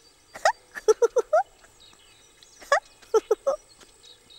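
A run of short, high, squeaky chirps, each rising quickly in pitch. They come in quick clusters: one about half a second in, a group of four around one second, then three or four more near the end.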